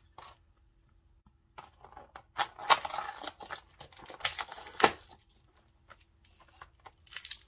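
Hands opening a cardboard advent calendar door: scattered clicks and scratchy cardboard rustling, with one sharp click about five seconds in, then a short crinkle of a plastic sleeve near the end.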